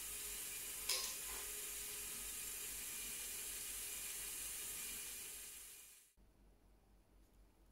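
Lego Technic Great Ball Contraption module running: a steady whir and rattle of its motors, gears and small plastic balls rolling along the tracks, with one sharp clack about a second in. The sound fades out over about a second near the end and drops to near silence.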